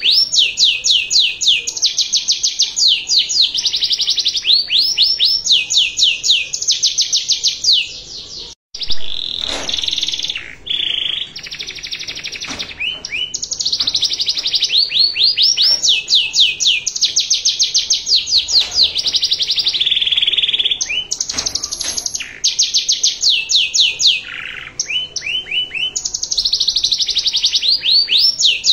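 Domestic canary singing a continuous song of high, rapid trills, each phrase a fast run of identical sweeping notes that switches to a new note type every second or two. There is a brief break about nine seconds in.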